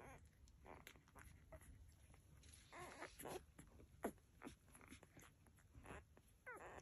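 Newborn Labrador puppies making a string of short, faint squeaks and whimpers as they nurse and sleep, some calls sliding in pitch.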